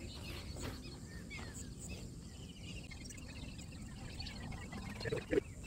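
Faint outdoor ambience: footsteps squelching and splashing through mud and shallow water, with birds chirping in the background and a short thump near the end.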